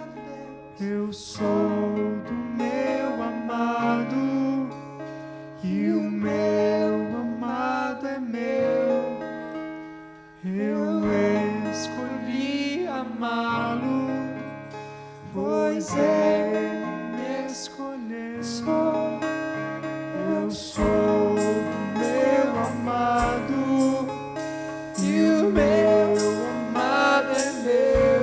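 Instrumental passage of a slow worship song: acoustic guitar chords strummed over sustained low notes, changing every couple of seconds, with a brief fall in level about ten seconds in.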